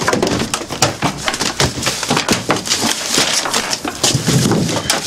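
Rummaging through shelves: box files and books being pulled out and shifted, a busy, unbroken run of knocks, clatters and rustles.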